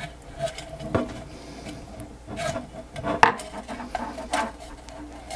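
Hands tugging at a stuck circuit board and wiring inside a milk frother's stainless steel body: scattered rubbing and scraping with a few light clicks of plastic and metal.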